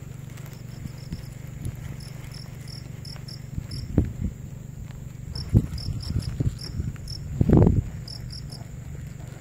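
Insects chirping in repeated trains of short, high pulses, with a few dull knocks about halfway through and a louder low thump near the end.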